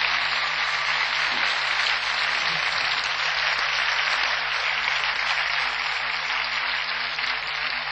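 Large crowd applauding steadily.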